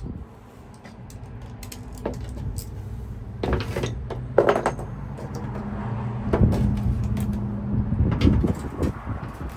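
Clicks, knocks and scraping of tools on metal as a locksmith works to pull a Ford F-150's ignition lock cylinder out, heaviest about halfway through and again near the end, over a steady low hum.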